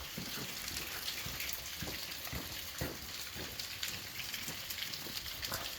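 Steady rainfall: a dense hiss broken by many small separate drop impacts.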